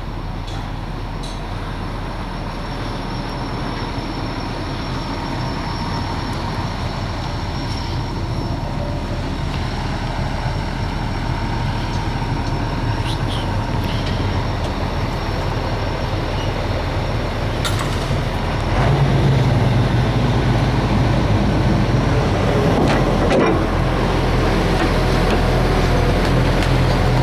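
Vintage excavator's diesel engine running steadily, getting louder about two-thirds of the way through.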